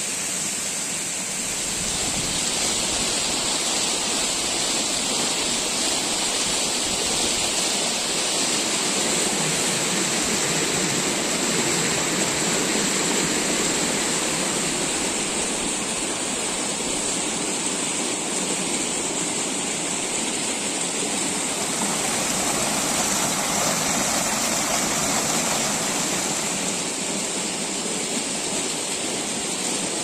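A large seasonal waterfall running in spate with snowmelt, its water falling free down a cliff in a steady, even rush.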